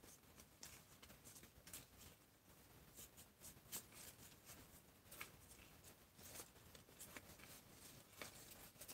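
Near silence with faint, scattered rustling and ticks from newborn kittens and their mother cat shifting against the cardboard of their box.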